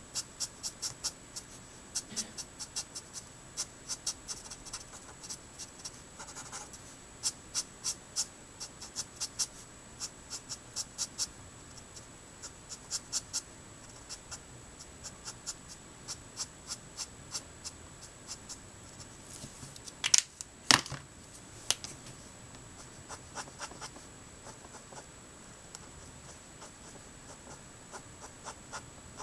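Letraset Promarker alcohol marker nib drawn over Neenah Solar White paper in quick short strokes, a soft scratching in rapid clusters. Two louder knocks come about twenty seconds in.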